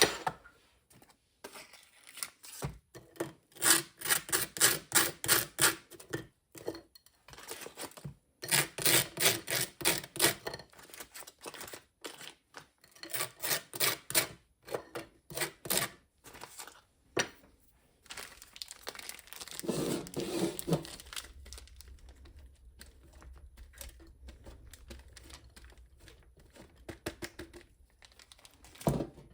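Runs of quick, rhythmic rubbing strokes, about four to five a second, each run lasting a few seconds, with softer handling and rustling between them.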